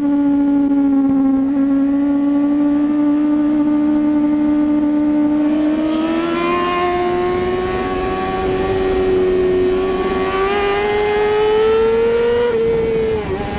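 Kawasaki ZX-6R 636 inline-four engine running hard at high revs, heard from on the bike. Its note holds steady, then climbs slowly from about halfway as the bike accelerates, and drops slightly near the end.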